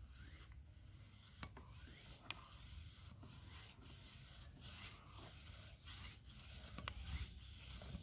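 Faint rubbing and handling noises with a few light clicks, about one and a half, two and a third, and seven seconds in.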